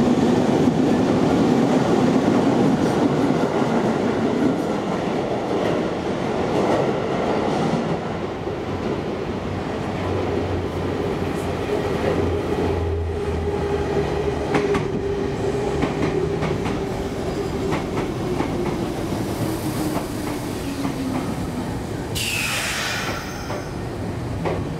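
A passing electric train's rolling noise, then a Sotetsu 7000 series train with resistance-controlled motor cars arriving. Its wheels click over rail joints and a hum slowly falls in pitch as it slows, with a brief squeal sliding downward near the end as it brakes alongside the platform.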